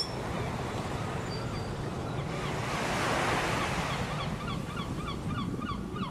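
Wind rushing over the camera microphone on a moving scooter, a steady roar reaching from low to high pitches. Over the second half comes a run of short, quickly repeated high chirps.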